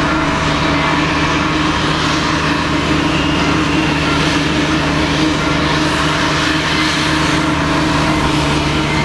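Boeing 737-800's CFM56 turbofan engines heard from afar as the jet lands and rolls out on the runway: a steady rushing jet noise with a low steady hum underneath.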